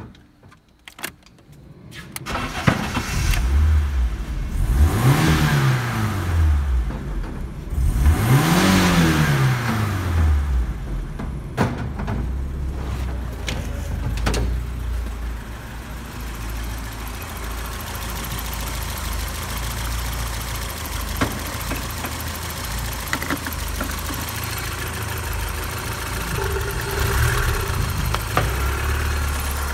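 BMW M40B18 1.8-litre four-cylinder engine starting up about two seconds in, revved twice with the pitch rising and falling each time, then settling to a steady idle.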